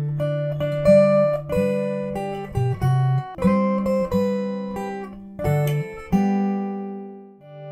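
Background music on acoustic guitar: a melody of single plucked notes and chords, each note ringing out and fading.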